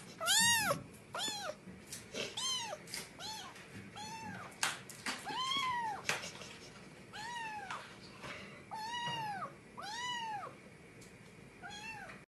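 Small black-and-white cat meowing over and over: about a dozen short meows, roughly one a second, each rising then falling in pitch.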